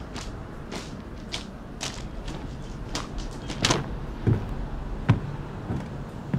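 Footsteps at a steady walking pace, one short stroke every half second or so, over a low steady background hum. The early steps are crisp clicks; from about four seconds in they become heavier thuds.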